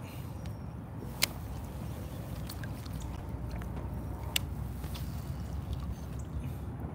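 Low steady rumble aboard a small inflatable boat on the water, with a few sharp clicks, one about a second in and another about four seconds in.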